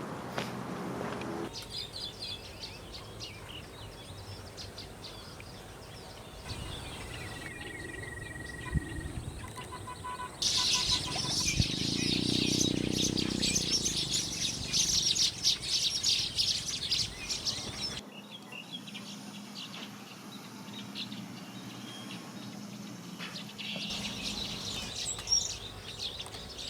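Asian golden weavers chattering and calling in several short cuts, densest and loudest in the middle. A low hum rises and falls about twelve seconds in.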